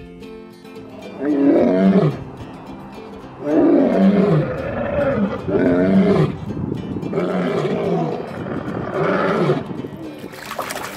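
Male lion roaring: about five long, loud calls in a bout, each falling in pitch.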